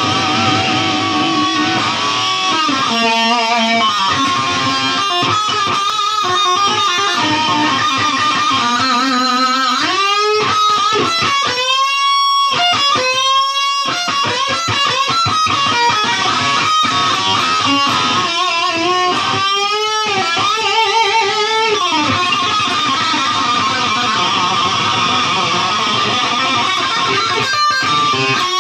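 Guitar music. In the middle of it, several held notes slide up in pitch and back down.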